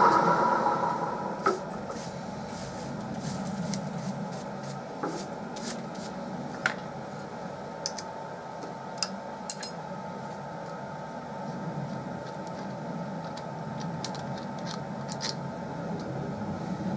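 Milling machine noise dying away over the first couple of seconds after drilling, then a steady low hum with scattered light metallic clicks and clinks as an Allen key undoes the cap screw clamping a cast iron cylinder cover to the drilling fixture.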